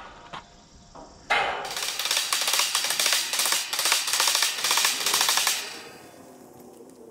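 Cordless impact driver hammering in a fastener for about four and a half seconds, a fast, dense rattle of impacts that starts suddenly about a second in and stops near the end. A couple of light clicks come before it.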